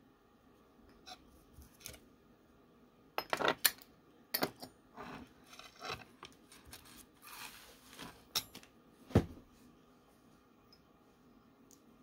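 Metal nail tools and a stainless steel lidded dish clinking against a glass mixing bowl and the tabletop: a quick run of sharp clinks about three seconds in and a single louder one about nine seconds in. A soft rustle of a paper towel being moved comes in between.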